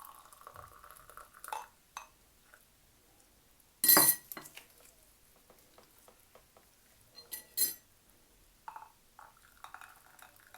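Water being poured to thin a cooked lemon-and-ginger syrup, with dishes and utensils clinking; the loudest clink comes about four seconds in and two lighter ones come about three seconds later.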